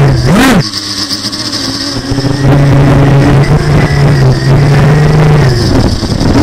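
Quadcopter motors spinning DAL T6045 tri-blade propellers, heard from the onboard camera: a loud, steady buzzing hum whose pitch wavers with the throttle. About half a second in, the pitch rises and falls quickly and the level drops for a second or so before the buzz returns at full strength.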